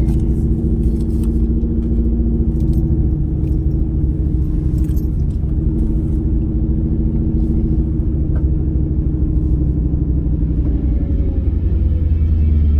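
Mustang's Whipple-supercharged V8 running at low speed with a steady, deep rumble. It gets louder near the end as the engine takes a little more throttle.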